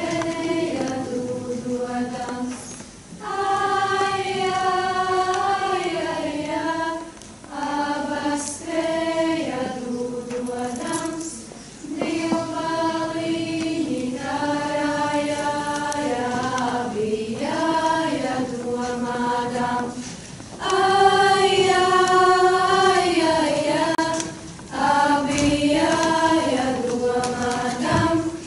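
A choir singing a slow song in long held phrases, with short breaks between phrases.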